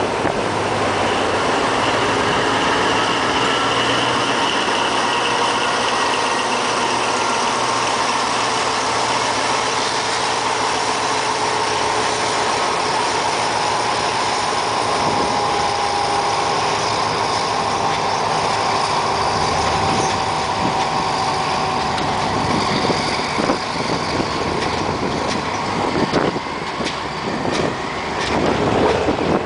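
Alsthom diesel-electric locomotive's engine running steadily as it hauls a train past. In the second half the passenger coaches roll by, their wheels clicking over the rail joints.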